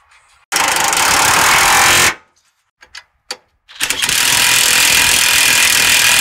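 Cordless impact wrench hammering as it runs down the lower mount bolt of a new rear shock absorber: one run of about a second and a half, a few short trigger blips, then a long continuous run from about four seconds in.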